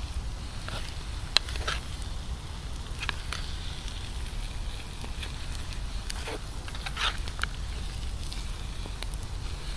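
Sporadic crackles and pops over a steady low rumble as a pan of beans and luncheon meat cooks.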